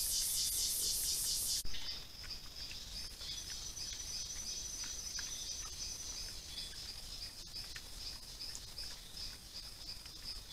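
Night insect chorus trilling high and steadily. About one and a half seconds in, it switches abruptly from a louder, coarser pulsing chorus to a softer, even trill. Faint scattered clicks and a single sharp click near the middle sound over it.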